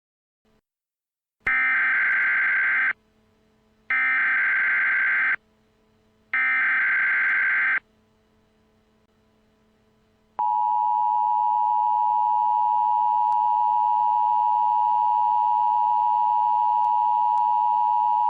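Emergency Alert System SAME header: three short bursts of warbling digital data tones, each about a second and a half long with a second of quiet between them, announcing an emergency alert. About ten seconds in, the steady two-tone EAS attention signal begins and holds.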